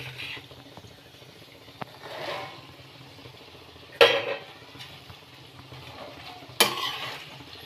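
Chopped flat-bean pods tipped into a kadhai of frying potatoes, then a slotted spatula scraping and knocking against the pan as they are stirred, with two sharp clanks about four and six and a half seconds in.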